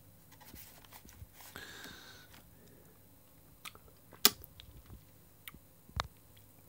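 Light handling of takeaway food and its packaging: a plastic fork working curry sauce onto bread, with a soft rustle of the cardboard box and paper bag. Scattered small ticks, and two sharp clicks about four and six seconds in, the first the loudest.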